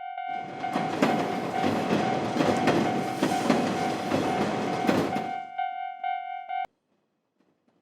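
Railroad crossing warning bell ringing its repeated 'kan-kan', about two strikes a second, while a train passes for about five seconds with a regular clatter of wheels over rail joints. The train noise fades away and the bell stops abruptly a second later.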